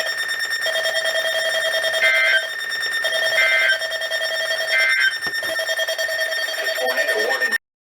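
NOAA Weather Radio end-of-message data bursts: three short electronic two-tone screeches about 1.3 seconds apart, closing the warning broadcast, over a steady electronic whine. Everything cuts off sharply near the end.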